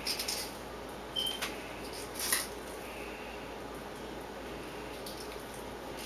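Knife cutting a fillet off a channel catfish along its bones: a few short, wet cuts and scrapes in the first two and a half seconds, then only a faint steady hiss.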